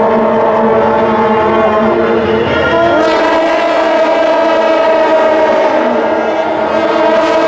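A large troupe of shaojiao, the long brass temple horns of Taiwanese processions, blowing together in a loud, steady, many-voiced drone.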